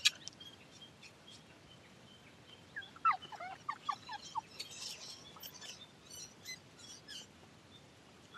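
A quick run of about eight short, falling calls from an animal about three seconds in, followed by faint, scattered high ticks.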